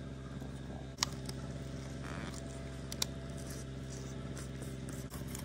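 A small engine running with a steady hum. Two sharp clicks, about a second and three seconds in, come from a fillet knife cutting a pike on a wooden board.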